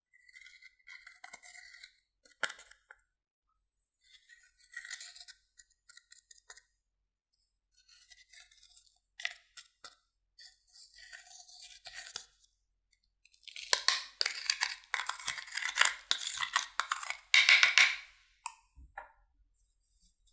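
Glossy slime being worked by hand, giving sticky crackling and clicking. It comes in short bursts at first, then there are about four seconds of dense, louder crackling before it stops.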